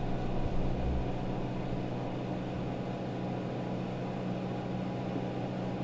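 Steady low electrical hum with room noise, with a couple of soft low thumps in the first second.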